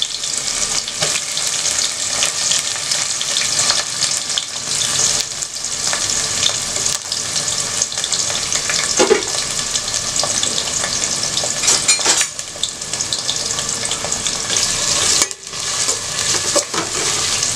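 Sliced onions sizzling and crackling in hot oil and ghee in a stainless steel pot, with a metal ladle scraping against the pot as they are stirred near the end. The sizzle breaks off briefly about fifteen seconds in.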